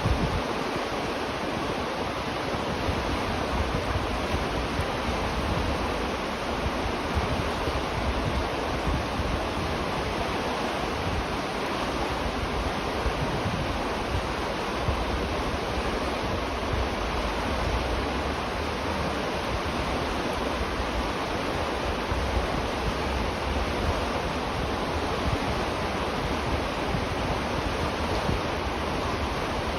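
River water flowing steadily, a constant rushing noise with an uneven low rumble underneath.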